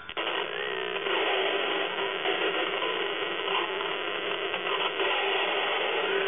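Homemade electronic soundbox played through a contact mic, giving a dense, grainy, mechanical-sounding noise that starts abruptly just after the beginning and then runs steadily, with faint sliding tones wavering through it.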